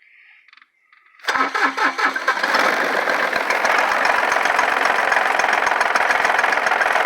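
A compact tractor's diesel engine is being started on the key. About a second in, the engine is turned over and runs with a fast, even knocking for about six seconds before it fades out. The tractor has been dying and refusing to start.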